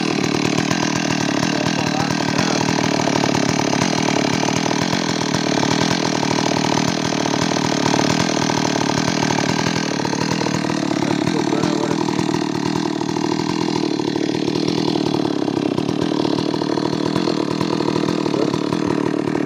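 Stihl MS 382 two-stroke chainsaw running steadily at speed, its note shifting slightly about halfway through.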